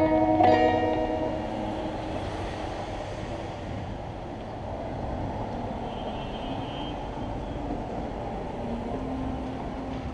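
A last acoustic guitar chord rings out, then a train rumbles steadily along the elevated track overhead. A brief high squeal comes about six seconds in.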